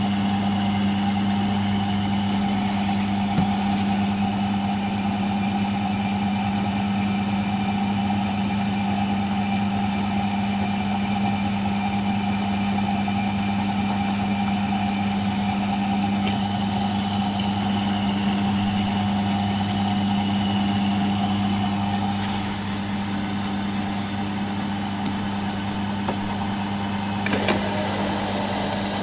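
Milling machine running with a steady motor hum while drilling holes. Near the end the tone changes and a high-pitched whine comes in.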